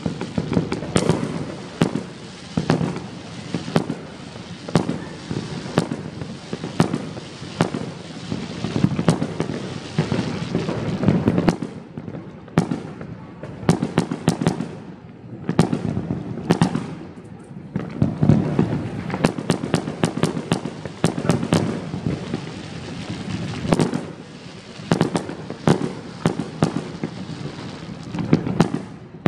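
Many fireworks going off in a dense run of sharp bangs and crackling pops over a low booming rumble. They thin out for a few seconds midway, then pick up again.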